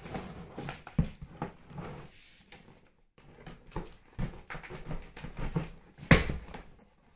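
Packaging of a boxed juicer mixer grinder handled by hand while its attachments are unpacked: irregular rustling and small knocks, with a sharp knock about a second in and a louder thump about six seconds in.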